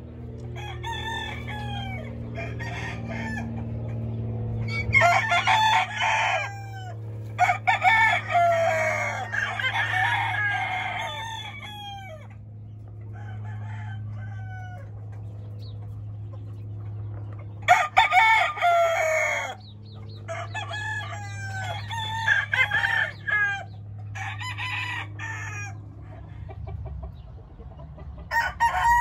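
Several gamefowl roosters crowing again and again, their crows overlapping, with clucking between, over a steady low hum.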